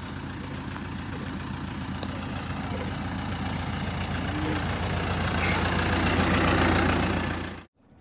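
Vehicle engine running steadily with a low hum, growing gradually louder, then cutting off suddenly near the end.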